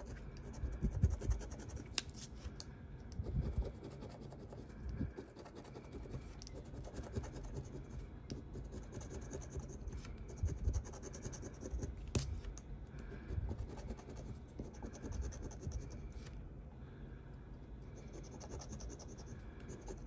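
Scratch-off lottery ticket being scraped in short, irregular strokes to uncover the play area, with a couple of sharp clicks.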